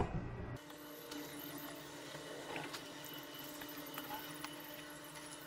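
A short knock at the start, then faint rustling and light ticks as a paper towel damp with cleaner is rubbed over a vinyl boat seat cushion, over a low steady hum.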